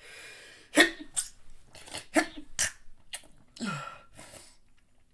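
A man's stifled sneezes: a quick run of short, sharp held-back bursts. The first, about a second in, is the loudest, and several weaker ones follow close behind.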